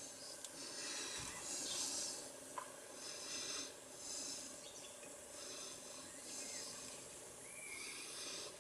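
Faint background hiss that swells and fades every second or so, with a low steady hum and a couple of small clicks.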